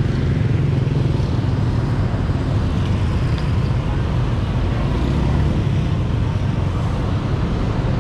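Steady low rumble of passing road traffic, cars and motorbikes, under the general noise of a busy street market.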